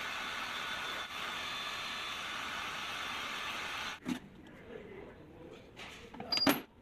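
A power tool runs steadily for about four seconds and then cuts off abruptly. A few light knocks follow, then one loud sharp clack near the end.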